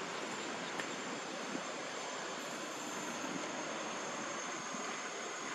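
Steady outdoor background noise: an even hiss with a thin, high steady whine, and a couple of faint ticks about one and one and a half seconds in.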